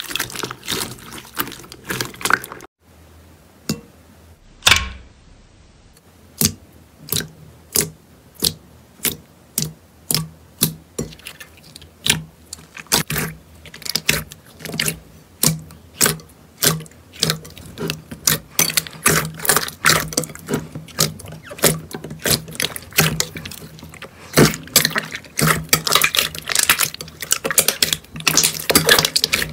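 Slime being squished and pressed by hand, making wet clicks and pops about one or two a second, which thicken into denser crackling in the second half.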